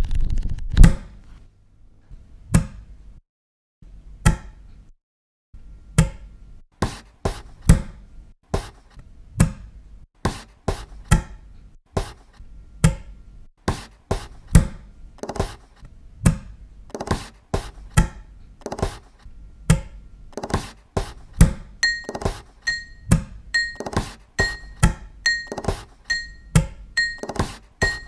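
Percussive knocks and thuds, sparse at first, then building into a quick, steady rhythmic beat. In the last several seconds each beat carries a short, high clink.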